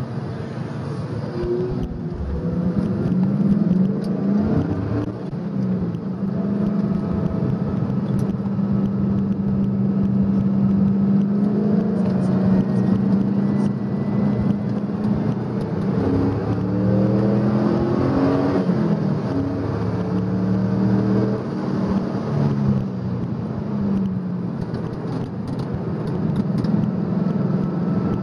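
Fourth-generation Chevrolet Camaro Z28's 5.7-litre V8 heard from inside the cabin under hard track driving, the engine note climbing and dropping with throttle and gear changes. There is a run of quick rising pitch sweeps about two-thirds of the way through.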